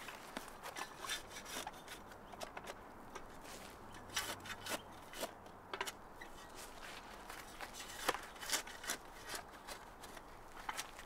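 Shovel digging into turf and soil: irregular scraping and crunching strokes of the blade cutting into the ground, the loudest about eight seconds in.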